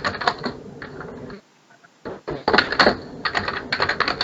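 Rapid typing on a computer keyboard: quick runs of keystroke clicks, a short pause about a second and a half in, then a second run.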